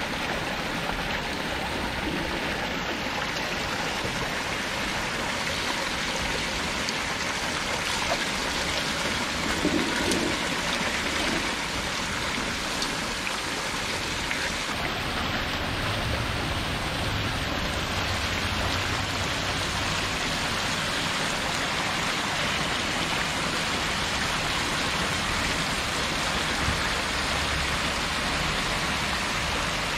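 Steady splashing of water from a hose pouring onto fish-feed pellets in a metal basin, with the surface of a crowded catfish tank churning alongside.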